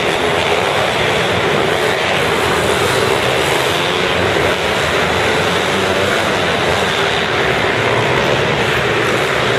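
Several mini motocross bikes running around the track together, their engines blending into a dense, steady noise without a clear note.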